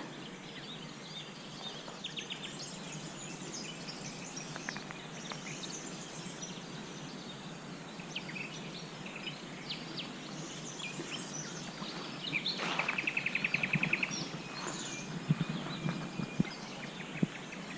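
Several wild songbirds chirping and singing over a steady background hiss, with one bird giving a loud, rapid trill about two-thirds of the way through. A few low thumps come near the end.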